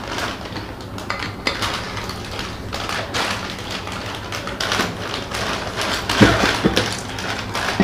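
Plastic chip packets crinkling and rustling as they are handled, with a couple of louder thumps about six seconds in.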